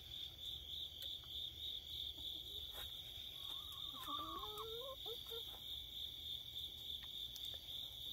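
Crickets chirping in a steady, even pulse. About halfway through, hens give a few short, soft, warbling calls.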